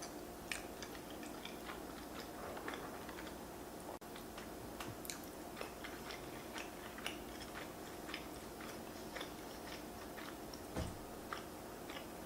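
A person chewing and eating creamy fettuccine Alfredo with king crab close to the microphone: many small, irregular wet mouth clicks over a faint steady hum, with a soft low thump near the end.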